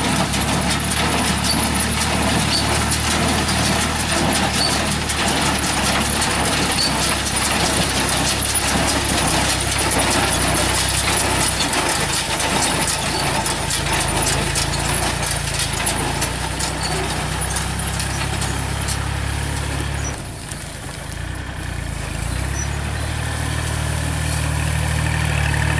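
A tractor engine running steadily while a pickup straw baler works through loose rice straw, with a fast, regular mechanical clatter over the engine hum. About 20 seconds in the engine sound drops away briefly, then comes back up.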